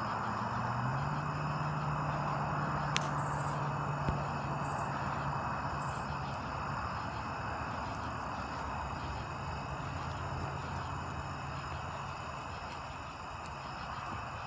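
Crickets and other insects trilling steadily in an evening chorus, over a low steady hum that sets in about a second in and fades partway through, with two faint clicks.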